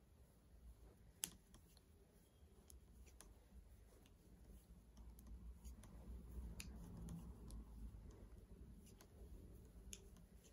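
Near silence with faint, scattered clicks of 9 mm straight knitting needles tapping together as stitches are worked, one sharper click about a second in.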